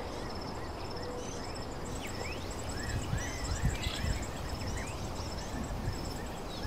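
Woodland ambience: birds calling in short chirps that rise and fall, with a faint high trill of rapid, even pulses over a steady low rumble.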